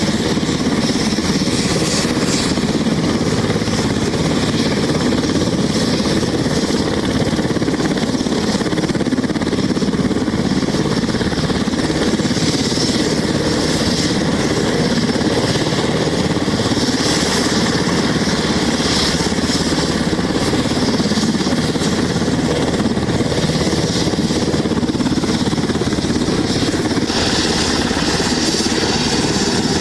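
Helicopter running steadily: a loud engine whine with fast rotor chop. The tone shifts slightly near the end.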